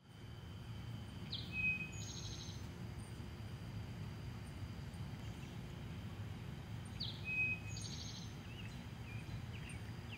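A songbird sings the same short phrase twice, about six seconds apart: a quick high note, a held whistle, then a buzzy trill. Under it runs a steady low background rumble.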